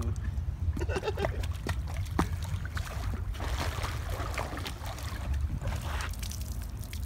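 Pool water sloshing and lapping in an inflatable pool, with scattered clicks and rustles as a wet rabbit climbs onto plastic sheeting at the edge.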